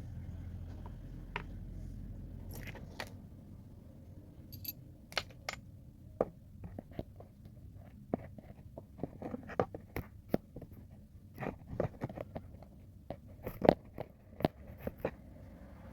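Irregular sharp clicks and knocks from hands working with tools and parts during a motor repair, coming thicker in the second half. A low hum sounds for the first few seconds.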